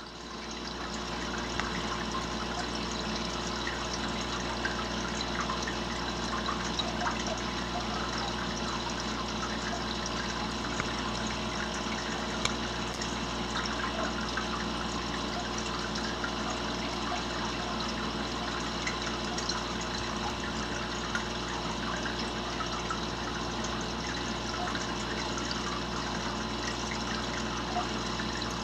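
Aquarium water circulating: a steady trickle with small bubbling crackles, over a constant low hum of running equipment.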